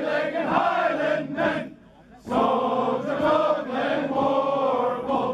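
A group of people singing together in unison, breaking off briefly about two seconds in, then singing on.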